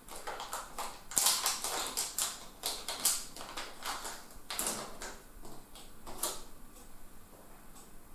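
Plastic packaging crinkling and crackling in quick irregular bursts as a small IDE flash module is unpacked, dying down to a few faint ticks after about six seconds.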